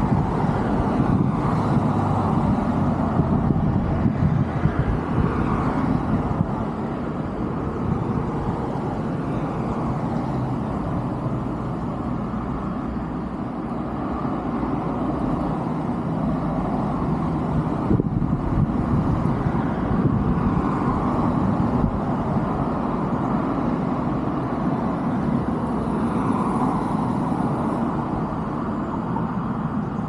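Road traffic: a steady rush of passing vehicles that swells and eases every several seconds.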